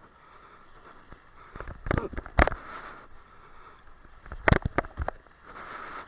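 Seawater sloshing and splashing among concrete tetrapods of a breakwater, with a few sudden louder splashes or rushes about two seconds in and again about four and a half seconds in.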